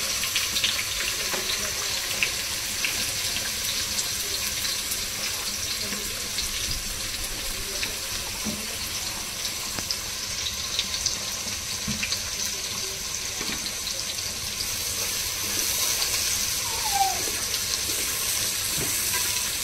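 Sliced onions sizzling in hot oil with whole spices as they begin to fry: a steady hiss with a few faint ticks.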